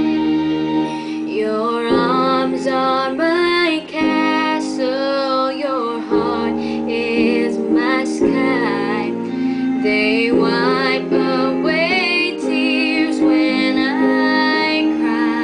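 A woman singing a pop song with vibrato over sustained instrumental backing chords.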